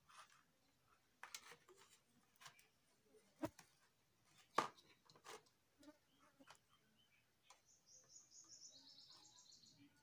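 Faint scattered clicks and taps of multimeter probe tips and leads being handled against a small circuit board, the sharpest tap about four and a half seconds in. For the last two seconds or so, a faint high, rapid trill of a small bird, stepping down in pitch.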